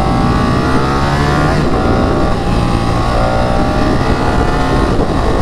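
Ducati Panigale 959's 955 cc Superquadro L-twin engine running under acceleration as the bike is ridden, its pitch climbing and dropping back a few times as it shifts up through the gears.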